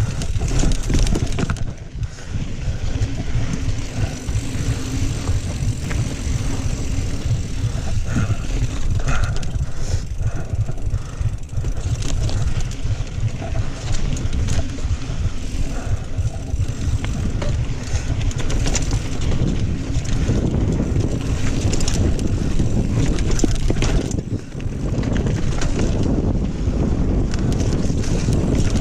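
Kona Honzo ST steel hardtail mountain bike being ridden along dirt singletrack. There is a steady rush of tyre and wind noise on the helmet or bike camera's microphone, and frequent rattles and knocks as the bike goes over rough ground.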